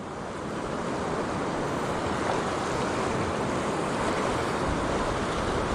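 Steady rush of a fast-flowing mountain river's current.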